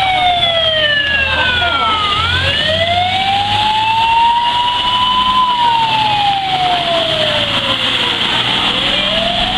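Fire truck siren in a slow wail, falling, rising, falling and starting to rise again near the end, over a low rumble and the hiss of floodwater spraying from the truck's wheels.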